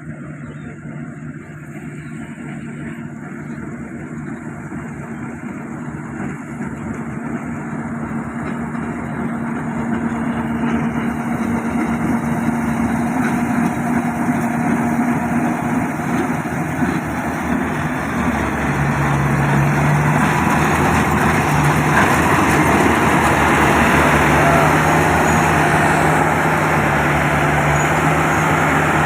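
Yanmar Y700 combine harvester running steadily, its engine drone and the rush of the machine growing gradually louder throughout.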